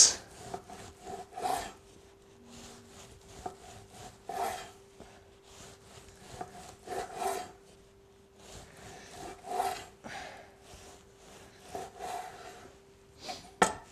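Knife slicing through a roast lamb leg while it is carved, a series of rasping sawing strokes, often in pairs, with short pauses between. A faint steady hum runs underneath.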